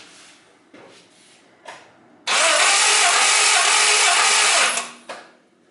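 Four-cylinder car engine cranked by its starter motor with all spark plugs removed, a steady whirring rush lasting about two and a half seconds that stops abruptly. This is the cranking for a compression test on cylinder one, with the gauge building pressure as the engine turns.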